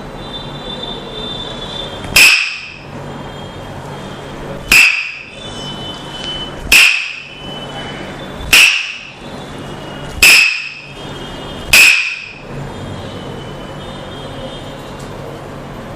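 Tok Sen massage: a wooden mallet knocking on a wooden stick held against the body, six sharp strikes about two seconds apart, each with a short ringing tone.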